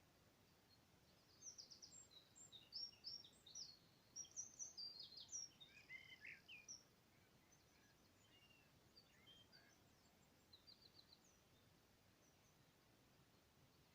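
Birds singing and chirping: a busy run of quick high chirps, short trills and gliding notes in the first half, then thinner, fainter scattered chirps over a quiet background hiss.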